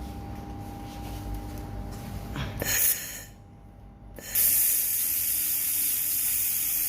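Handheld laser welding gun hissing: a short hiss about two and a half seconds in, then after a brief pause a loud steady hiss from about four seconds in, over a low machine hum with a faint steady tone before it.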